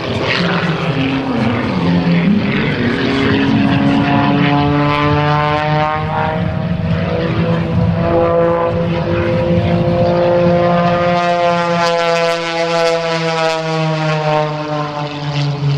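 Modified Pitts aerobatic biplane's piston engine and propeller running hard through aerobatic manoeuvres. The engine note slides up and down in pitch several times as the plane climbs, turns and passes by.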